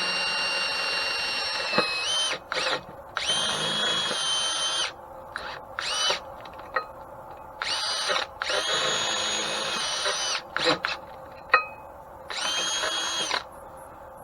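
Electric drill drilling an oiling hole: a steady motor whine for about two seconds that dips slightly in pitch as the bit bites, then a series of short start-stop bursts as the trigger is pulsed, with a few sharp clicks between them.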